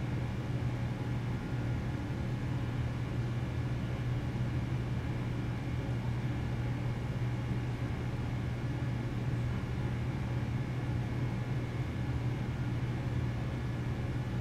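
A steady low hum, with a few faint steady tones above it, unchanging throughout.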